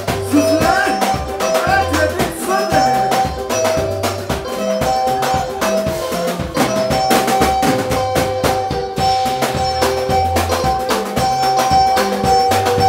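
Soukous band playing live: repeating high guitar riffs over a pulsing bass line and a driving drum kit, with no singing in this stretch.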